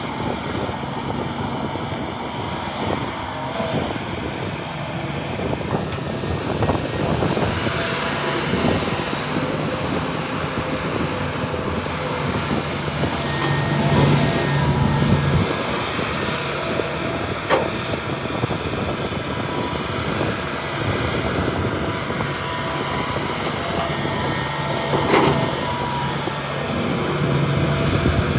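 Heavy diesel earthmoving machinery running steadily, its engine note swelling twice, with two or three sharp knocks.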